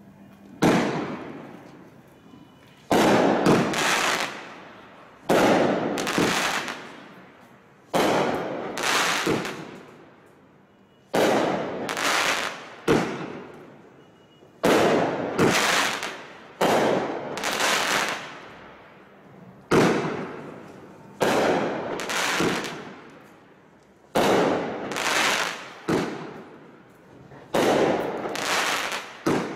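A Red, White & Boom 200-gram, 20-shot fireworks cake firing shot after shot, roughly every one to two seconds. Each shot is a sudden sharp report, often two in quick succession, whose sound trails off over a second or two.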